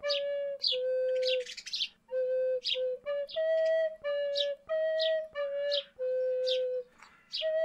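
A slow, soothing flute melody of long held notes, with birds chirping over it again and again.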